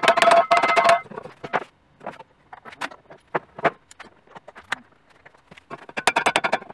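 Hammer blows on a welded stainless steel tube laid over a wooden 2x4, knocking its egg-shaped section back to round. A quick run of ringing metallic strikes lasts about a second, then comes a stretch of sparse, lighter knocks, then another fast run of strikes starts near the end.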